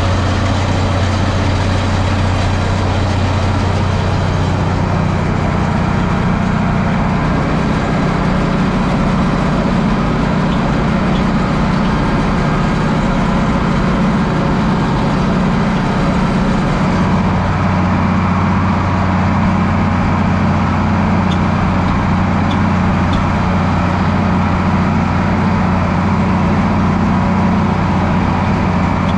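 A farm tractor's diesel engine runs steadily and loudly, its low note shifting a few seconds in and again a little past halfway.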